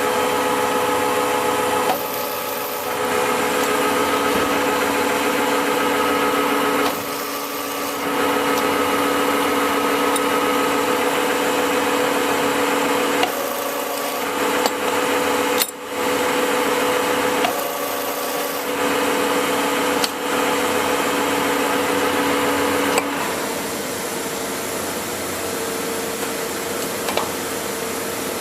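Clausing Colchester 25-inch engine lathe running under its 30 hp main drive: a steady gear whine that dips and changes pitch several times as it is run through different speeds, with a few sharp clicks.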